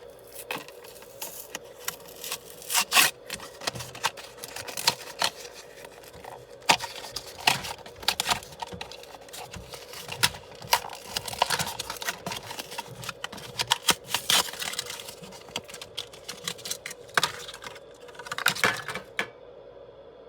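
Hands handling and opening the packaging of a Matchbox die-cast toy car: irregular clicks, taps and short scraping and rustling noises, with a louder cluster near the end.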